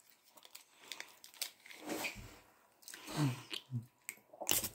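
Teeth biting and tugging at a small plastic sachet that will not tear open: small crinkles and clicks, with a couple of short throaty sounds of effort around three seconds in.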